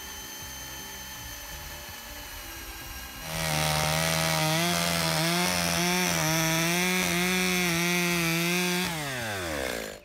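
Two-stroke chainsaw opened up to full throttle about three seconds in, its high engine note wavering slightly as it cuts through a thick locust board; near the end the throttle is released and the engine note falls away. Before the cut there is a quieter steady hum.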